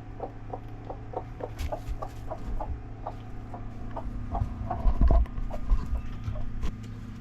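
Broody hens in a nesting box clucking in a steady run of short, repeated calls, about three a second, the sound of hens disturbed on the nest as their eggs are taken. A few dull knocks come about five seconds in.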